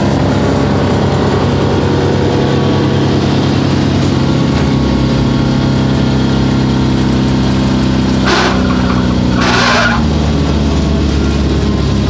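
Vermeer BC1000 wood chipper's engine running steadily; between about eight and ten seconds in its pitch drops, with two short noisy bursts, as the controls are worked.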